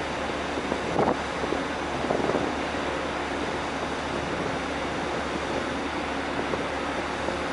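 Steady rush of wind and churning water on the open deck of a large car ferry under way, its wake foaming behind the stern, with a faint steady hum from the ship.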